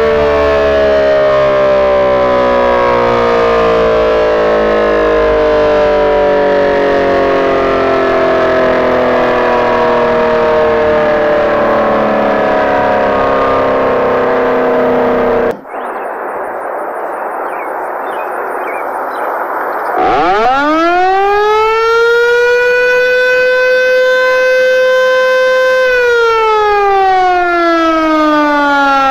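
Outdoor warning sirens. One siren winds down slowly, its pitch falling for about fifteen seconds. After a sudden cut and a few seconds of quieter hiss, another siren spins up quickly, holds a steady pitch for several seconds and then starts to wind down.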